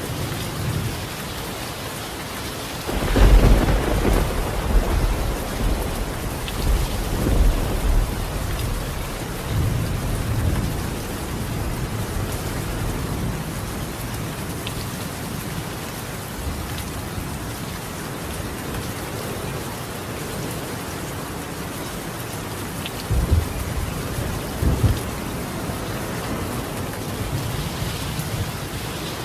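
Steady heavy rain on a roof of clay colonial tiles. A thunderclap breaks in suddenly about three seconds in and rumbles on for several seconds, and a second, shorter rumble of thunder comes later on.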